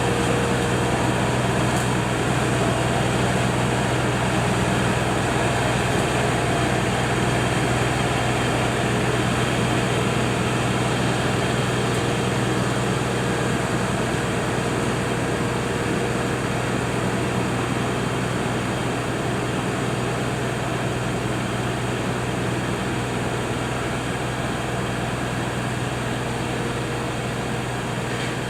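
LS MT240e compact tractor's diesel engine running steadily with its PTO-driven brush hog (rotary cutter) spinning, mowing a slope; a continuous drone that grows slightly quieter toward the end.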